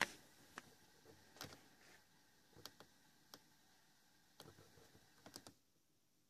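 Light clicks of the push-buttons on a JVC KS-FX630R car stereo faceplate, irregular, about one or two a second, the loudest right at the start. The radio's own sound is silent between stations while it is being tuned.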